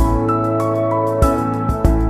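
Instrumental background music: held notes that shift in pitch every second or so, each change starting with a sharp struck attack.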